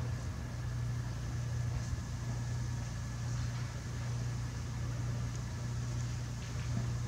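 A steady low mechanical hum, even and unbroken, like a motor or engine running.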